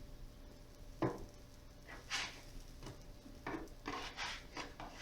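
A spatula scraping and tapping on a griddle while pancakes are flipped: a sharp knock about a second in, then a run of short scrapes.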